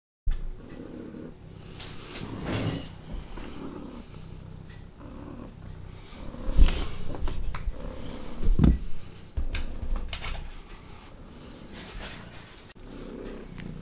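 Irregular rustling and knocking handling noises close to the microphone as a tobacco pipe is handled, with two louder thumps about six and a half and eight and a half seconds in.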